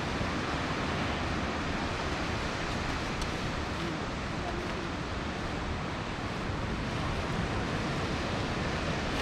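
Steady sea surf washing onto a sandy beach, mixed with wind rumbling on the microphone.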